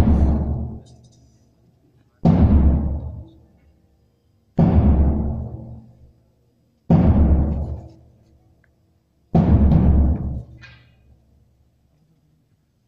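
Five heavy strokes on a large, deep drum, about one every two and a half seconds, each ringing out and dying away before the next.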